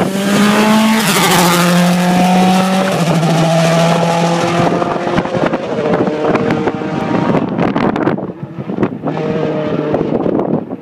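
Rally car passing at speed, its engine note stepping through gear changes as it goes by. It then carries on away down the stage with further bursts of revving, fading near the end.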